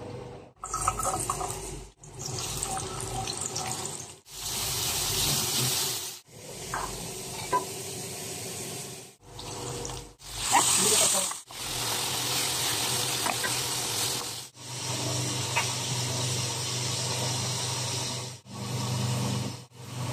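Kitchen cooking noise in a string of short clips, each a steady hiss broken off by a sudden cut, with a few light clicks.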